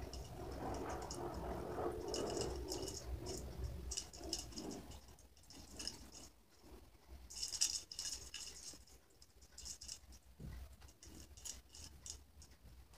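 A foam-headed broom on a long pole brushing against a small pendant lamp with crystal-style hanging drops. For the first few seconds there is a rubbing, brushing sound, then the drops clink and rattle in scattered clicks, loudest in a cluster about halfway through.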